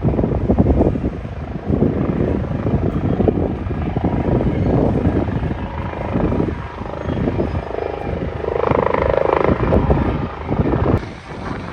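Pilot-transfer helicopter flying in close, its rotor chopping in a rapid, steady beat, with a higher whine that rises for a couple of seconds near the end.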